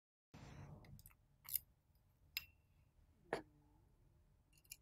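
Faint handling clicks of a plastic swivel-nut connector housing being picked up and fitted onto an Ethernet cable: three small separate clicks about a second apart, the last the loudest.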